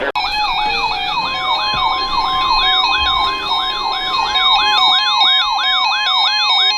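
A weather alert radio's warbling siren alarm, sweeping up and down about three times a second. About a second in, the NOAA Weather Radio warning alarm tone joins it as one steady tone. Together they announce an incoming warning broadcast.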